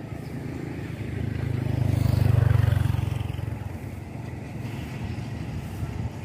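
Low engine rumble that swells to a peak about two and a half seconds in, then fades back to a steady background hum.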